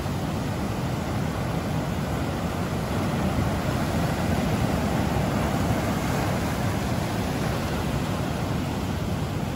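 Steady rush of ocean surf breaking on a sandy beach, heavy in the low end, with wind rumbling on the microphone; it swells slightly a few seconds in.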